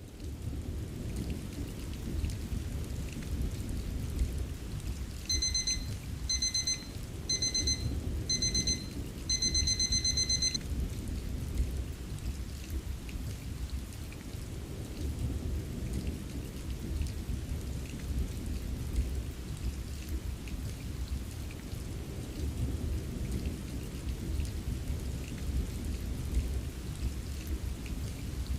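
Steady rain with a low rumble of thunder. About five seconds in, a digital timer alarm beeps: four short beeps about a second apart, then a quicker run of beeps. The alarm signals the end of the 5-minute Pomodoro break and the start of the next focus block.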